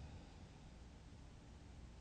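Near silence: only a faint, steady room hiss.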